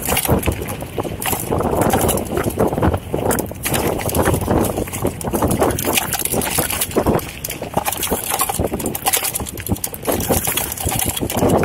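Footsteps and rustling close to the microphone: a steady run of irregular scuffs and crackles over a low rumble.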